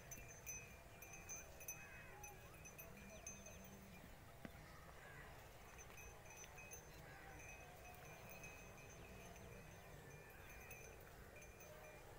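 Near silence: faint outdoor ambience with a low rumble, a faint steady high-pitched tone and a few scattered faint chirps.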